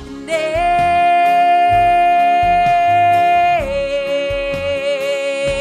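A woman singing a long held final note over instrumental accompaniment, stepping down to a slightly lower note about three and a half seconds in and holding it with a light vibrato.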